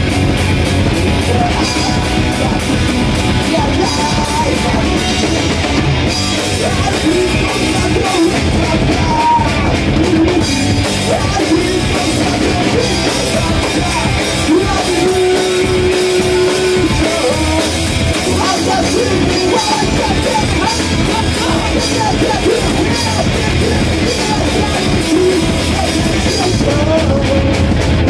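Live rock band playing loud: drum kit, electric guitar and a singing voice.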